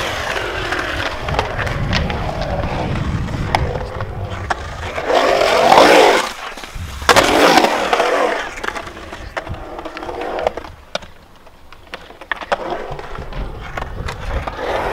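Skateboard wheels rolling and carving on the concrete of a skatepark bowl. The rolling noise grows loud twice about halfway through and drops low near the end, with scattered sharp clicks.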